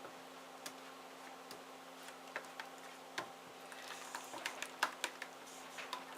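Scattered light clicks and taps of soapmaking utensils and containers being handled, irregular and busier about two-thirds of the way in, over a steady low hum.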